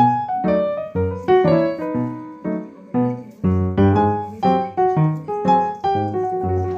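Background piano music: a quick, steady melody of struck notes that ring and fade, over regular bass notes.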